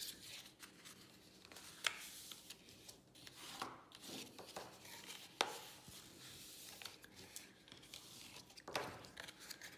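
Faint rubbing of a bone folder drawn along folded paper to crease the score lines, with paper handling and three sharp taps spread through.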